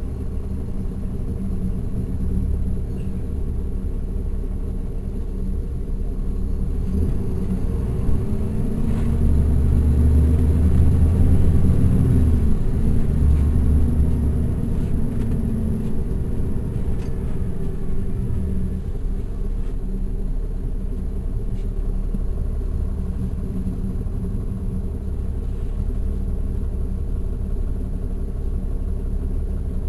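Caterpillar C13 ACERT diesel engine of a 2009 NABI 416.15 transit bus, heard from inside at the back of the bus: a steady low drone. About a third of the way in the engine note climbs and grows louder for a few seconds, then drops back and settles to a steady drone.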